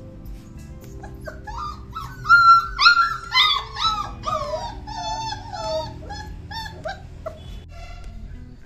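About a dozen short, high-pitched cries and yelps from a litter of month-old Doberman puppies, starting about a second in, loudest around two to three seconds in and thinning out near the end. The puppies are crying to be let out of their pen.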